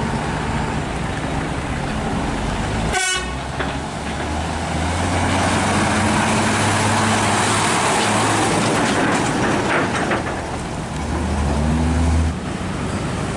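Hino 500 FM320TI truck's six-cylinder diesel engine running as the tractor unit and its low-bed trailer carrying a mini excavator drive past; the engine note climbs near the end.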